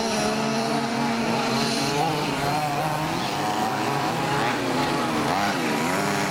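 Several 1/5-scale RC Baja buggies' small two-stroke petrol engines buzzing and revving together, their pitches rising and falling as the cars accelerate and brake.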